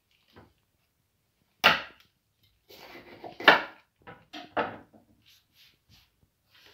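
Clear plastic salad bag crinkling and rustling in irregular bursts as a kitten's head pushes about inside it, mixed with the kitten munching lettuce leaves. The loudest are two sharp crackles, one a little under two seconds in and one about halfway.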